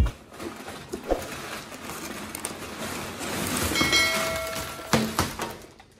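Brown kraft packing paper crinkling and rustling as it is pulled out of a cardboard box. About four seconds in comes a short bell-like chime, and about a second later a thump.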